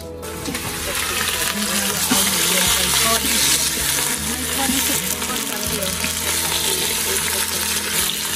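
Pork pieces sizzling steadily as they fry in hot oil in the steel inner pot of an Instant Pot, turned with metal tongs.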